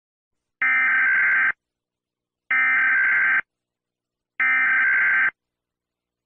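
Emergency Alert System SAME header: three bursts of warbling digital data tones, each just under a second long with about a second of silence between them. This is the coded header that opens an EAS alert.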